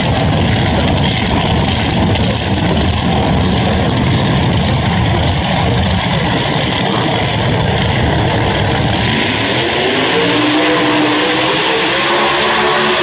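Loud drag-racing car engine running with a rough, uneven note; about ten seconds in, an engine note climbs steadily in pitch as it accelerates.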